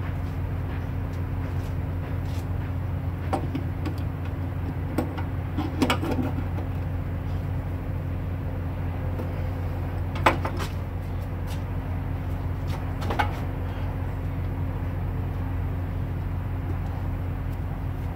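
Freightliner Cascadia semi tractor's diesel engine idling steadily, with a handful of short sharp clicks and knocks, the loudest about ten seconds in.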